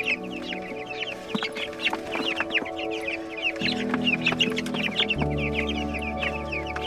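A flock of young meat chicks peeping continuously, many short high descending peeps overlapping several times a second. Steady held music notes sit underneath, changing twice.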